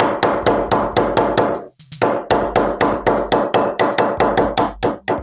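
Small ball-peen hammer tapping a steel roll pin punch in quick, even strikes, about five a second, with a short pause about two seconds in. The strikes drive a 3/32 roll pin out of a rifle bolt to free the extractor.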